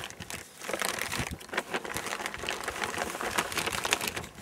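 Sealed green plastic ration-pack bags crinkling as they are handled and moved, a dense run of irregular crackles.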